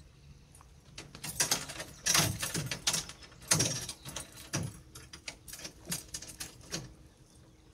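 A caught trout being handled and put on a stringer at the side of a boat: a run of irregular knocks and rattles, loudest about two and three and a half seconds in, thinning out toward the end.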